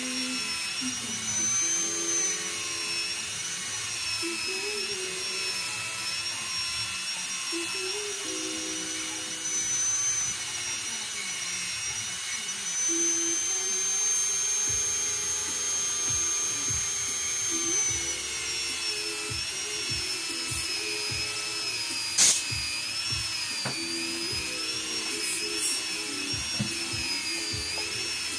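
Small high-speed rotary grinder whining as it grinds down the worn valve-stem pads of a Nissan TD27's rocker arms. Its pitch wavers with the pressure on the work and holds higher and steadier for a few seconds around the middle. A single sharp click comes about three-quarters of the way through.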